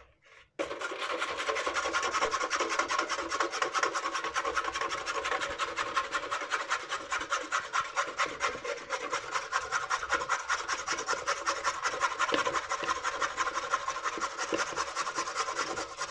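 Raw carrots being grated by hand on a stainless steel box grater: a quick, even scraping rhythm of several strokes a second, starting about half a second in.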